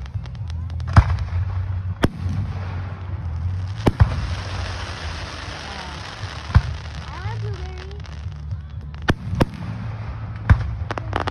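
Aerial firework shells bursting overhead: about eight sharp bangs at irregular intervals, the loudest about a second in.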